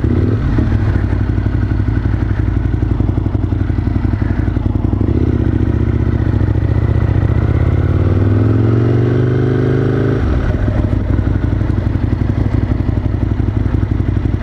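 Motorcycle engine running under way, its pitch climbing steadily for a few seconds as it accelerates, then dropping suddenly about ten seconds in.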